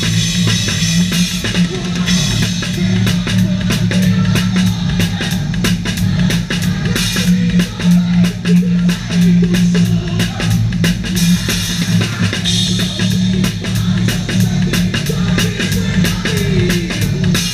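Rock drum kit played live, fast and hard: a dense run of even strikes on kick and snare with cymbals.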